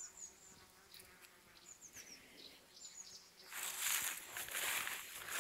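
Bees buzzing faintly as they forage on flowers, with a few short, high chirps. About three and a half seconds in, a louder, even hiss takes over.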